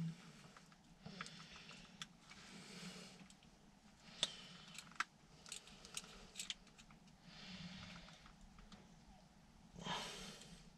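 Faint handling noises as a dash cam and its windscreen mount are repositioned: scattered sharp plastic clicks, two of them louder about four and five seconds in, between soft rustling.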